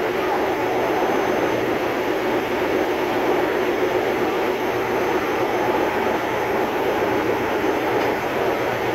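Ship's engine-room machinery running: a steady, loud mechanical drone that does not change.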